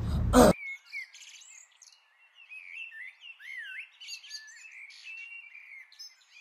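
Birds chirping: a busy run of short chirps and trills sliding up and down in pitch. A brief loud noise at the very start cuts off abruptly before the chirping begins.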